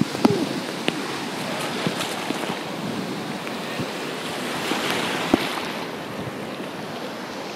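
Surf washing onto a sandy beach, with wind on the phone's microphone. The surf swells about five seconds in, and there are a few short handling knocks.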